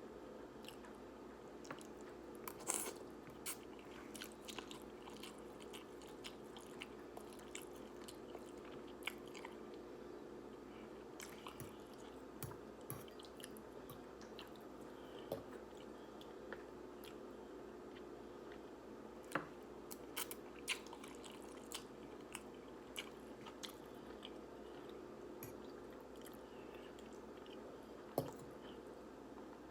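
Close-up chewing of instant ramen noodles: irregular wet mouth clicks and bites, with a few louder ones about three seconds in, near twenty seconds and near the end, over a steady low hum.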